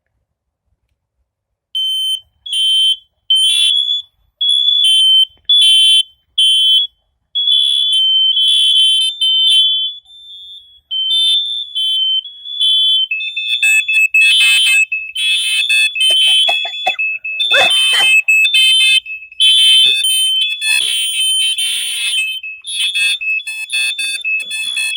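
Several smoke alarms on a demonstration board set off together. High-pitched beeping starts about two seconds in, and from about halfway a second, slightly lower-pitched alarm joins, so several alarms beep over one another in different patterns.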